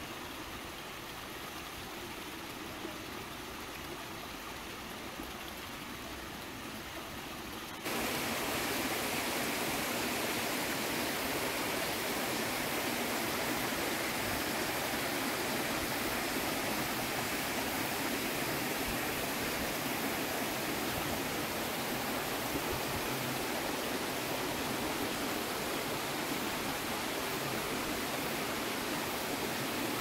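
Steady rush of a rocky forest stream. It is fainter at first, then suddenly steps up to a louder, fuller rush about eight seconds in and holds there.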